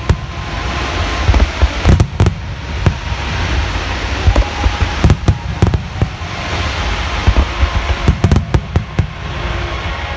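Large aerial fireworks going off in a dense barrage: many sharp booms and crackles, some in quick clusters, over a continuous hiss and rumble.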